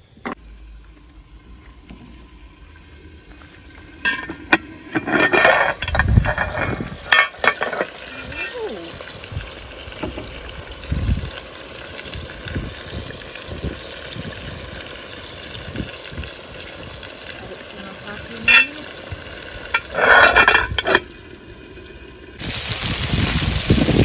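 Chicken pieces frying and sizzling in a large metal pot, with a metal spoon stirring and scraping against the pot and a few bursts of metal clatter. The sizzle gets louder near the end.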